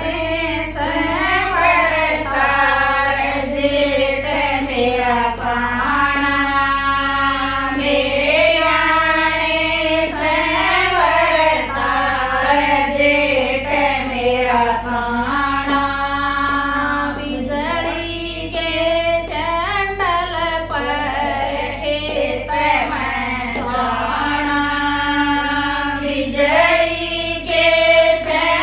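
A group of women singing a Haryanvi jakdi folk song together, in sung lines a few seconds long with brief breaks between them.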